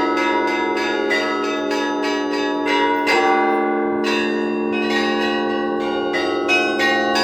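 Orthodox cathedral bells rung by hand in an improvised peal. Small bells are struck in quick succession, about three to four strokes a second, over the lingering hum of the larger bells, with a heavier stroke about three seconds in.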